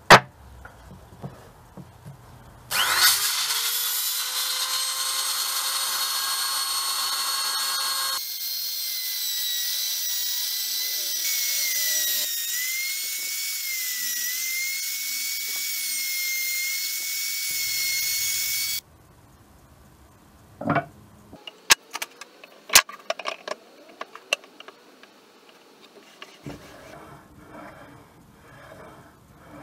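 A wooden block knocks down onto the workbench. A few seconds later a handheld power tool spins up and runs into wood at high speed for about sixteen seconds, a high whine whose pitch shifts as it works, then stops. Afterwards wooden pieces knock and click as they are handled.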